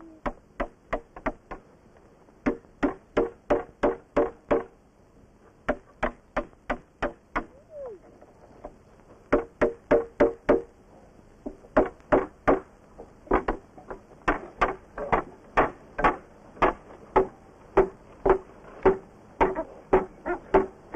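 Repeated sharp knocking, about four knocks a second, in runs of a few seconds broken by short pauses; each knock has a brief ringing note, as of something hard struck on wood.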